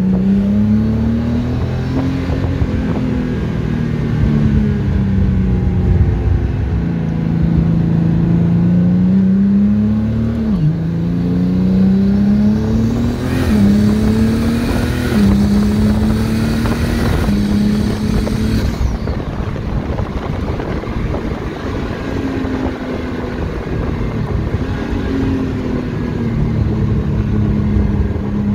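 Turbocharged BMW M50B30 inline-six in an E30, heard from inside the cabin, pulling up through the gears: the engine note rises, then drops abruptly at each quick dual-clutch upshift, four times in quick succession in the middle. A loud rushing hiss joins for several seconds during the hardest pull.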